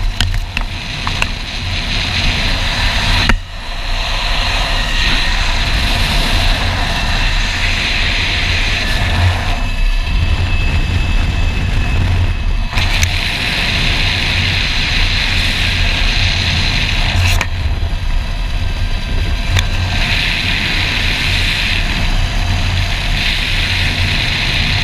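Zip-line trolley running along the steel cable with a steady hiss that swells and eases, over a heavy low rumble of wind buffeting the helmet-mounted camera's microphone.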